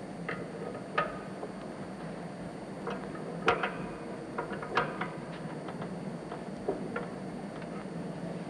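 Steel tommy bar clinking against the union nut of a marine diesel fuel valve as the nut is tightened: scattered sharp metallic clicks and knocks at uneven intervals, over a steady low hum.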